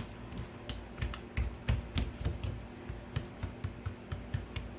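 Hands stretching and patting oiled dough on a work surface: a run of soft, irregular taps and light slaps.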